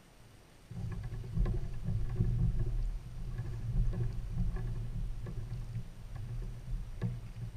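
Muffled low rumble with a few light knocks, carried through a kayak's hull to a camera in a waterproof housing. It starts suddenly about a second in.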